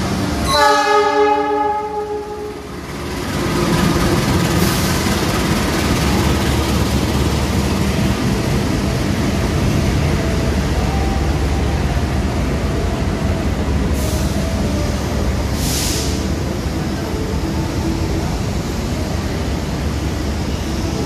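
A train horn sounds once for about two seconds, then a passenger train rolls steadily past, its wheels rumbling on the rails, with two brief hisses about two-thirds of the way through.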